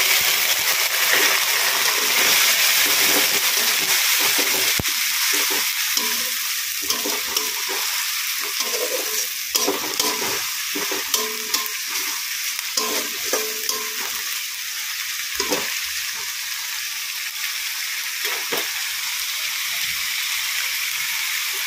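Onion and garlic paste frying in hot mustard oil with fried onions in a kadai, sizzling steadily while it is stirred. The sizzle is loudest at first and eases off slowly.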